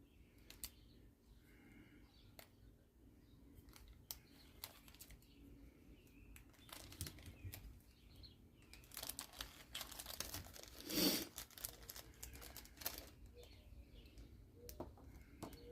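Faint crinkling of small plastic bags and light clicks and taps of small pen-kit parts being handled and set down, with a louder rustle about eleven seconds in.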